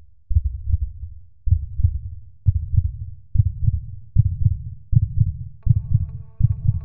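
Heartbeat sound effect: low double thumps, speeding up from about one a second to nearly one and a half a second. About two-thirds of the way through, a steady synth chord comes in over the beats.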